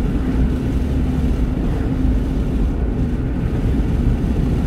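Car driving on the highway, heard from inside the cabin: a steady low rumble of engine and tyre noise.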